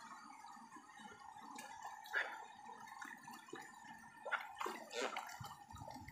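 Creek water splashing and sloshing around people wading in it, with a few sharper splashes about two seconds in and again around four to five seconds in, over a steady faint whine.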